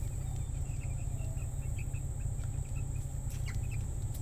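Steady high-pitched drone of insects, with a few faint short chirps and a low steady rumble underneath.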